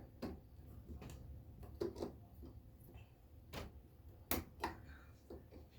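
Encon Premier ceiling fan running slowly on low speed with a faint, steady low hum, broken by a few scattered light clicks and knocks.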